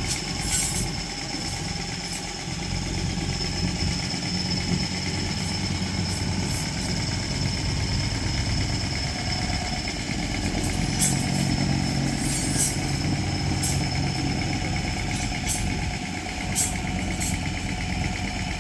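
Engine of concrete-pour machinery running steadily, with short sharp clicks now and then.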